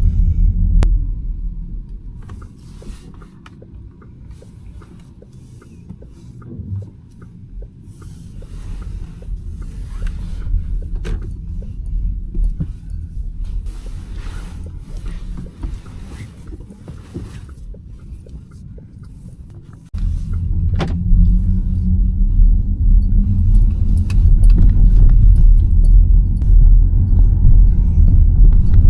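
Low road-and-tyre rumble of a Škoda Elroq electric car driving, with no engine note, only the road noise. It eases off to a quieter rumble a couple of seconds in, then jumps back loud suddenly about two-thirds of the way through.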